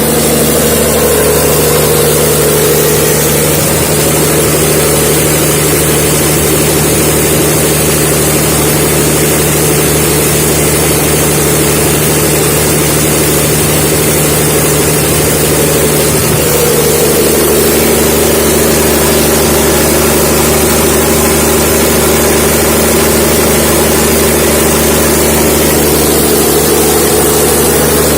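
Perkins diesel engine of a 790 kVA generator set running at a steady speed, loud and even throughout.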